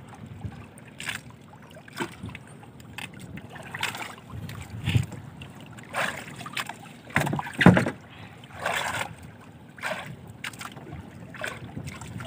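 Choppy sea water slapping and splashing against the hull and outrigger of a drifting outrigger fishing boat, in irregular bursts about once a second. The loudest splashes come a little past the middle.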